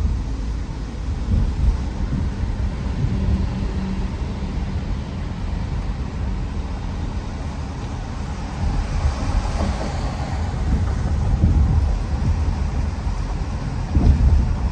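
Low rumble of a car moving through city streets, heard from inside the cabin: tyre and road noise with uneven low thumps, and a swell of higher hiss a little past the middle.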